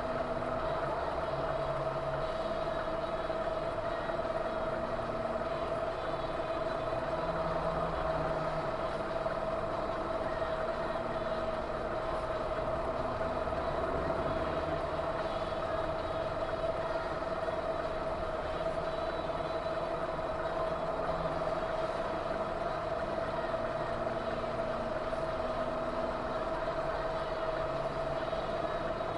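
Steady vehicle running noise with a constant high hum over it.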